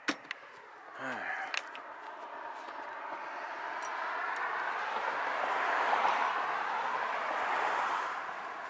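A vehicle passing, its tyre and road noise swelling over several seconds, loudest about six seconds in, then fading. A couple of sharp clicks come in the first two seconds.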